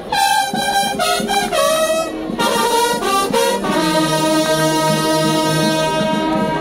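Frevo brass band playing: a string of short notes, then a long held chord from about four seconds in.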